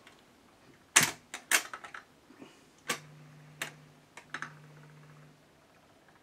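A series of sharp clicks and knocks, about seven in all, from hands working the record player's controls, with a faint low hum for a couple of seconds in the middle.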